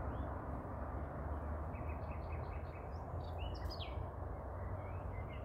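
Songbirds singing: a quick run of short chirps about two seconds in, then higher whistled notes and short falling slurs, over a steady low rumble and hiss.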